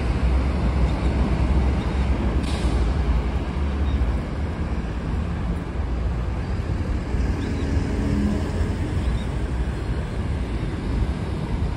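City street traffic: a steady low rumble of passing vehicles, with a brief hiss about two and a half seconds in.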